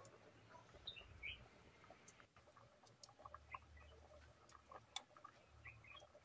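Near silence with a few faint bird chirps, about a second in and again near the end, and scattered light clicks.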